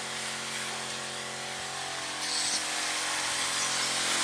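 Small battery-powered electric sprayer pump running steadily, a motor hum under the hiss of water sprayed as mist from the nozzle. It gets a little louder about two seconds in.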